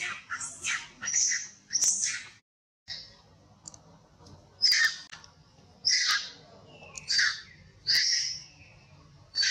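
Long-tailed macaque screaming in distress: shrill, high-pitched shrieks, several in quick succession, then one about every second after the sound drops out briefly.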